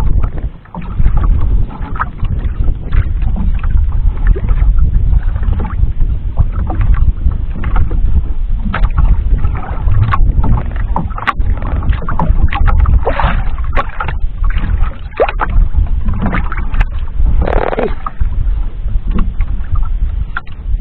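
Constant low rumble of wind and sea around a small outrigger fishing boat, with scattered sharp knocks and clicks.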